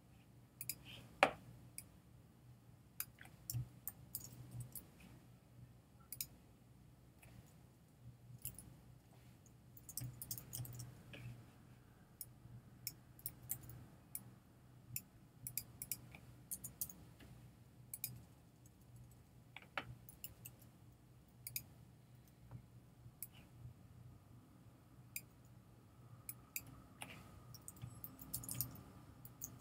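Irregular, sharp clicks of a computer mouse and keyboard key presses, some in quick runs, over a faint steady low hum.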